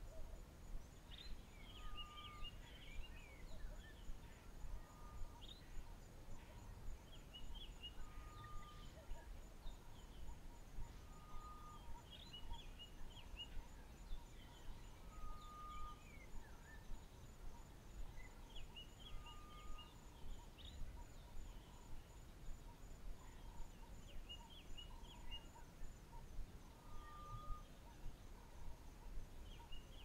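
Wild birds of the South African bush calling: a single short whistled note repeats every three to four seconds, among bursts of chattering calls. A faint high, pulsing buzz runs underneath and stops near the end, over a low outdoor rumble.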